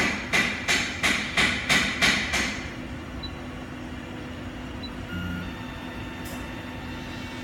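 A quick series of sharp knocks, about three a second, for roughly the first two and a half seconds, then only a steady low background hum.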